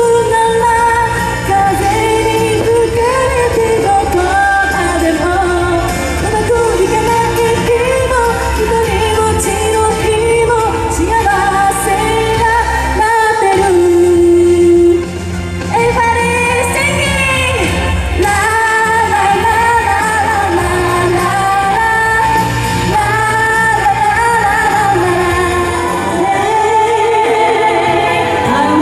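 A woman singing a Vietnamese pop song into a microphone over a band backing with a steady beat. A long held note comes just before a short dip in the music about fifteen seconds in.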